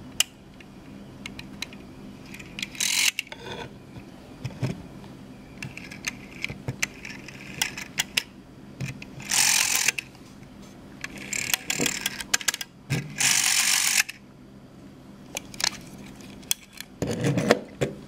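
A rotary telephone dial mechanism from a 1978 phone is worked by hand, giving about five short whirring runs as the dial springs back under its governor. Sharp mechanical clicks of its levers and contacts fall in between.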